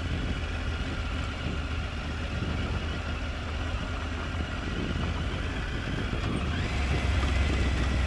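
Triumph Tiger 900 Rally Pro's three-cylinder engine running under way, with steady road and wind noise; about six and a half seconds in its revs rise and it gets louder.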